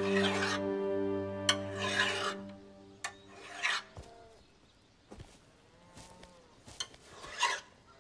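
Hand file rasping along the edge of an iron plowshare in a few slow, separate strokes with pauses between them. Soft music fades out over the first couple of seconds.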